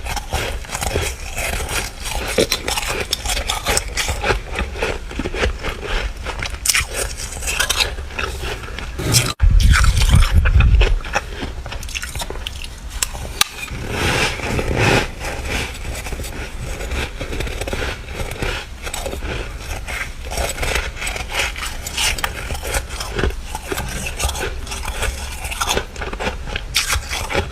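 Freezer frost being scraped up and bitten, a dense run of flaky crunching, crackling and squeaking close to the microphone. A loud low rumble comes about nine seconds in and lasts a second or so.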